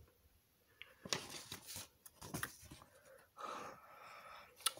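Faint rustling and light clicks of a plastic model kit's box and packaging being handled, with a longer breathy rustle about three and a half seconds in and a sharp click near the end.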